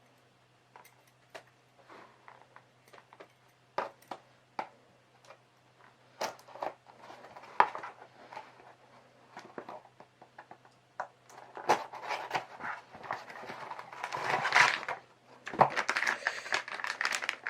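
Packaging being handled while a box of hand tools is opened: scattered light taps and clicks, becoming denser rustling and crinkling in the last few seconds. A faint steady low hum runs underneath.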